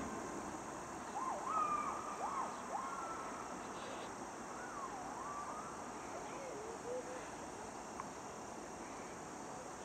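Faint steady high drone of insects, with a few faint whistling calls gliding up and down in the first half.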